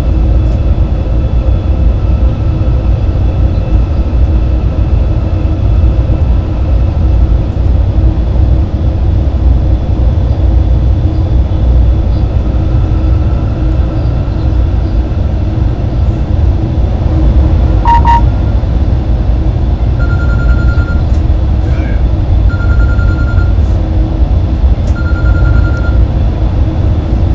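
Steady rumble and rush of running inside the cab of an NS Class 186 Traxx electric locomotive at high speed, with a faint steady hum under it. About two-thirds of the way through a short sharp beep sounds, and near the end a tone beeps three times, about a second each.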